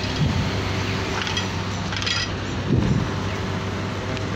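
Traffic at a road intersection: a steady hum of idling and passing cars, with two brief low thumps, one just after the start and one nearly three seconds in.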